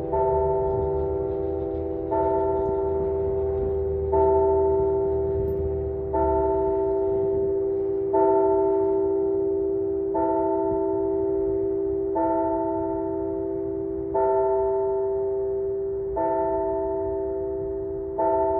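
A single large tower bell tolling, struck evenly about every two seconds, ten strokes all at the same pitch, each ringing on and fading into the next. It keeps tolling one note rather than playing a tune.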